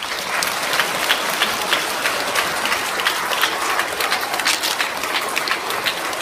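An audience of schoolchildren applauding, many hands clapping together in a steady, dense patter.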